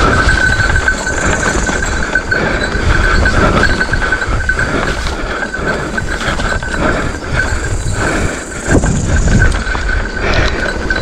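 Mountain bike ridden fast over a rough dirt trail: the bike and handlebar camera mount rattle and jolt over bumps, with low wind rumble on the microphone. A steady high tone runs underneath throughout.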